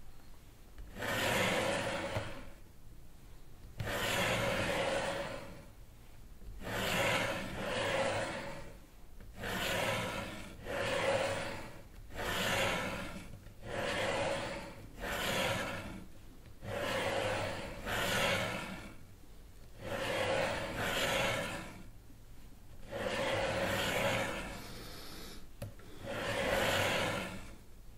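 A rasping, rubbing noise that comes in surges about every two seconds, each lasting about a second.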